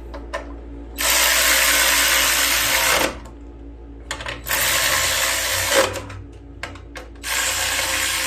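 A power drill runs three times, about two seconds each, driving bolts home, each run ending with a falling pitch as it stops.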